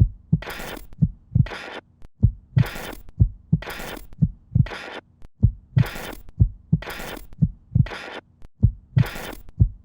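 A steady pulse of low double thuds, about one pair a second, like a heartbeat, each followed by a short burst of hiss.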